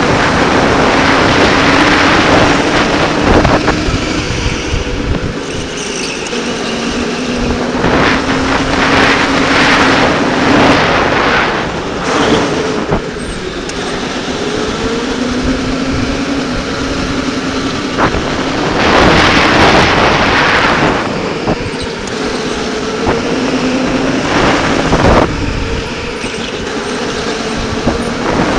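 Electric go-kart motor whining, its pitch rising in repeated climbs as the kart accelerates and then breaking off into the corners. Surges of wind rush over the helmet-mounted microphone come and go.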